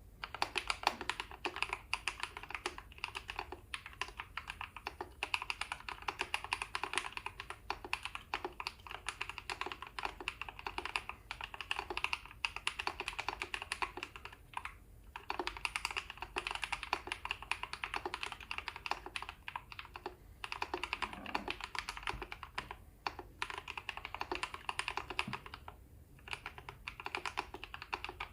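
Fast continuous typing on a Drop CTRL high-profile mechanical keyboard with Holy Panda tactile switches, filmed and lubed with Krytox 205g0, in an aluminum plate with case and PCB foam, under doubleshot PBT keycaps. Dense keystrokes with a few short pauses.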